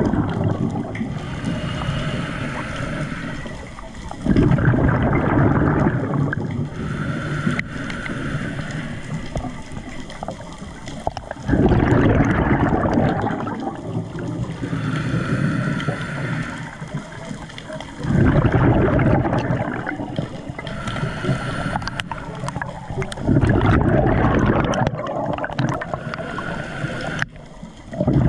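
Underwater water noise heard around a diver: loud gurgling surges come about every six seconds, each lasting a couple of seconds, with quieter stretches between.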